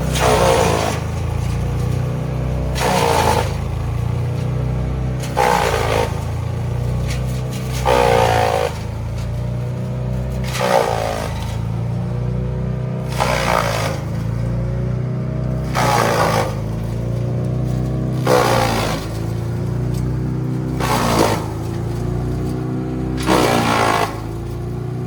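6-inch wood chipper running steadily, with a loud burst of chipping about every two and a half seconds as material is fed in. The pitch dips under each load and then recovers.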